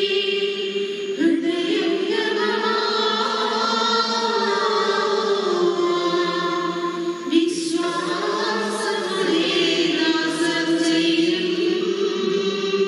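A choir singing a slow liturgical chant in long held notes, with a new phrase starting about a second in and again about halfway through.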